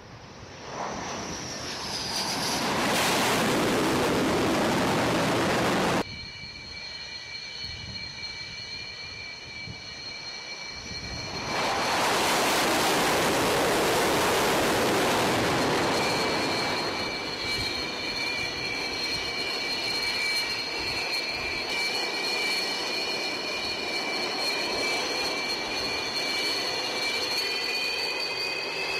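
Su-33 carrier fighter jet engines. A loud jet roar builds as a fighter comes in to land on the carrier deck and cuts off suddenly about six seconds in. A steady high turbine whine from jets running on deck follows, with a second loud roar of engine thrust from about twelve to sixteen seconds, then the whine of a taxiing Su-33's engines, rising in pitch near the end.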